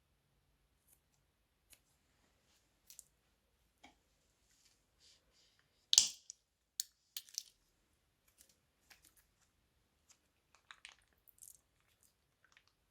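Crunchy slime being worked in plastic piping bags: scattered small clicks and crackles, the loudest about six seconds in, followed by a quick cluster of smaller ones.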